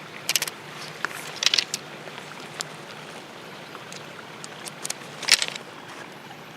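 Scattered short clicks and rustles of things being handled, with the loudest about five seconds in, over a faint steady low hum.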